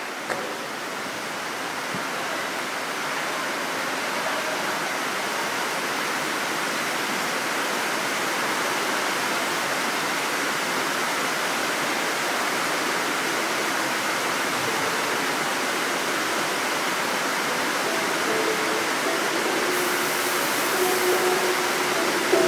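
Steady rushing hiss of hall noise that grows slowly louder, with a sharper, brighter hiss for about a second and a half near the end as a stage fog machine fires.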